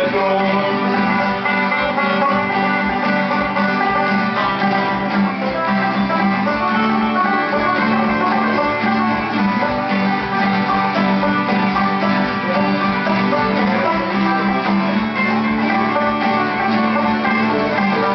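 Old-time string band playing an instrumental break, with banjo and fiddle over guitar and upright bass, at a steady tempo and with no singing.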